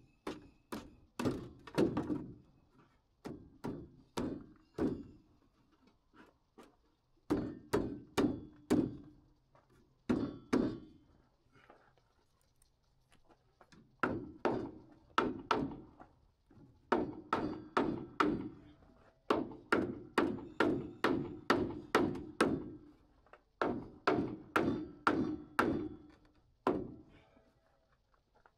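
Hammer driving nails into wooden floor joists: quick runs of sharp strikes, about four a second, in groups with short pauses between them.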